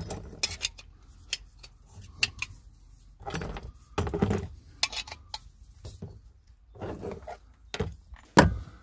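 Irregular clicks, knocks and short rattles of a portable gas cooker and its gear being handled and set up, with a sharp knock near the end the loudest.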